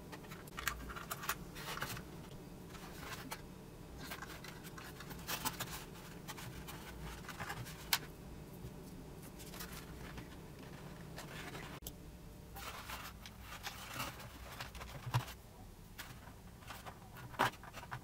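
Irregular scratching, scraping and light clicks of a thin steel pushrod wire being handled against foam board and fitted to a small plastic servo horn.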